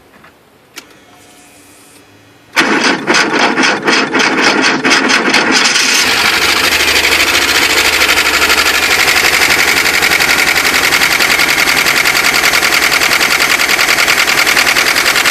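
A 1991 Volkswagen Vanagon's water-cooled flat-four engine is cranked by the starter in a quick, even rhythm. It catches after about three seconds and settles into a steady idle. It now starts because a new distributor has replaced one whose failed Hall sender left it with no spark.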